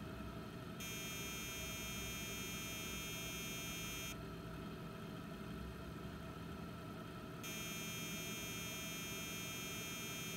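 Two long high-pitched electronic tones, each about three seconds, from a 386 PC during its power-on self-test (POST), starting about a second in and again about seven seconds in. A steady low hum runs underneath from the running machine.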